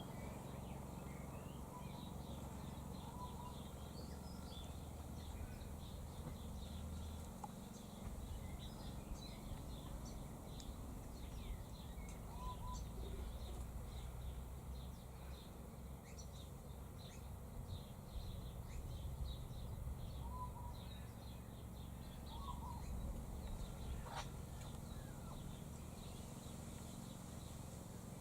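Wild birds chirping throughout: many short, high chirps, with a few brief, lower whistled notes now and then, over a steady low rumble.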